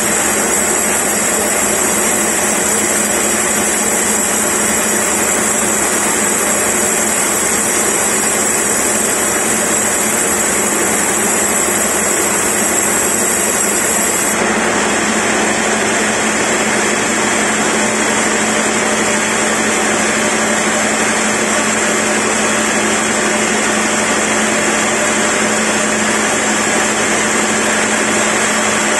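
Large log band saw running steadily, its blade cutting lengthwise through a log: a constant hum under the continuous noise of sawing. The tone shifts slightly about halfway through.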